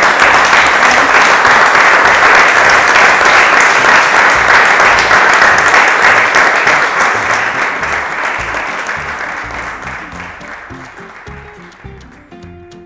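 A seated audience applauding, loud at first and fading away over the last few seconds, with music playing underneath.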